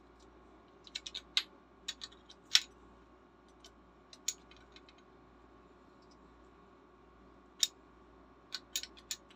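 Scattered sharp clicks and light metallic taps of small wrenches and spray-gun fittings being handled and set down, in short clusters with quiet gaps between.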